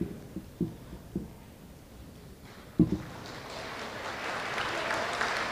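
Footsteps thudding on a hollow wooden stage, with a louder thump almost three seconds in. After that, audience noise from the crowd rises and keeps building.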